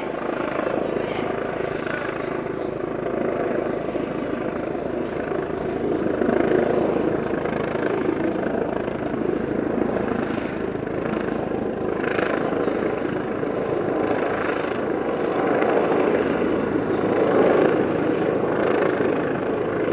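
Eurocopter EC135 police helicopter hovering directly overhead, its rotors and turbines making a steady, loud drone that swells and eases slightly in loudness.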